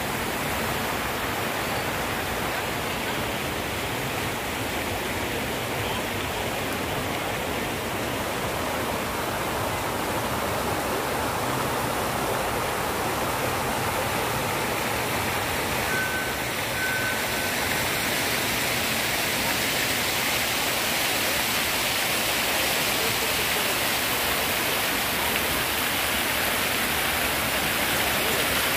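Water jets of a large public fountain splashing into its basin: a steady, even rush of falling water.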